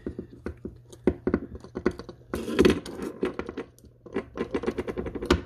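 Irregular small metal clicks, taps and scrapes from a XIKAR XO cigar cutter's housing, screws and blades as it is unscrewed and taken apart, with a denser clatter in the middle.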